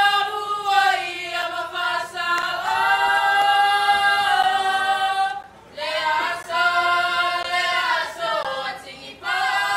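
Group of women singing a Samoan song together, unaccompanied, in long held notes, with short breaks between phrases about halfway through and near the end.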